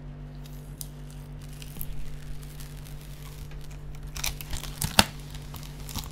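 Clear protective plastic film being peeled off a PC case's tempered-glass side panel. Faint crackles at first, then a run of crackling and tearing from about four seconds in, with one sharp loud snap about five seconds in.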